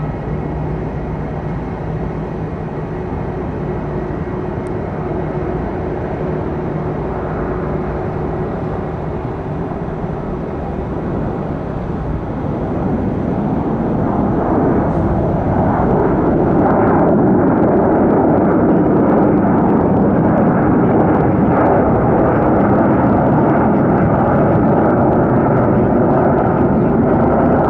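Jet airliner engines, a steady rush with faint whining tones at first, growing louder about halfway through and then staying loud.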